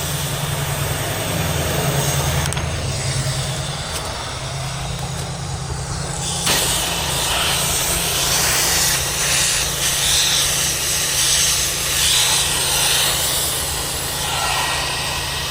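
Pressure washer engine running steadily, with a hiss of water spray starting about six and a half seconds in.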